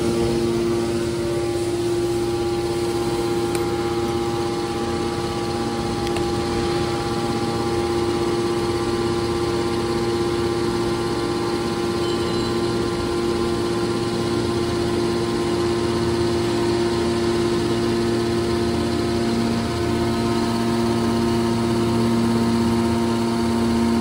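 Hydraulic power unit of a scrap metal baler, an electric motor driving the hydraulic pump, running steadily with a constant hum made of several steady tones.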